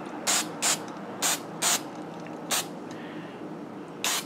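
Aerosol can of Krylon flat white spray paint sprayed in about six short hissing bursts, laying on a light mist coat.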